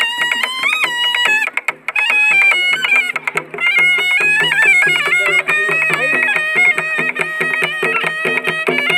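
Khasi traditional shad music: a tangmuri reed pipe playing a fast, ornamented dance melody over a steady beat on a cord-laced barrel drum (ksing).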